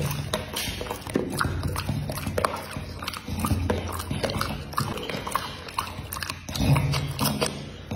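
Pit bull chewing a mouthful of fruit, with wet mouth clicks and lip smacking.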